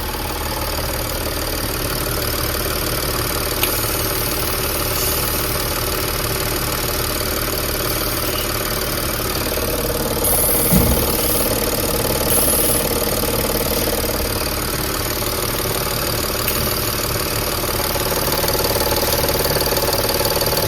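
Audi A6 C6 diesel engine idling steadily, still making the same foreign noise with a spare intake manifold fitted. The mechanic later traces it to the high-pressure fuel pump, which he hears pulsing.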